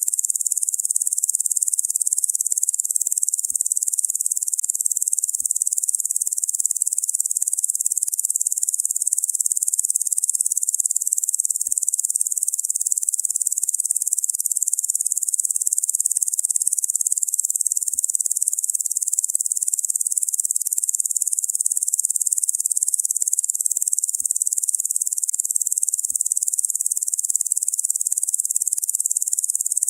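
Insect chorus given as locusts: a steady, high-pitched buzzing hiss with no pauses or changes.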